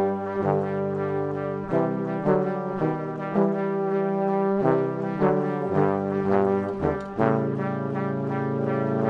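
Background music: a slow melody of held notes that change every second or so.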